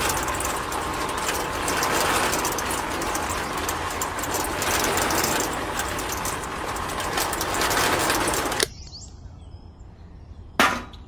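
Small electric motor of a home-made toy concrete mixer spinning its can drum, which is churning a cement-and-water mix. It runs steadily for about nine seconds, then cuts off suddenly. A short knock comes near the end.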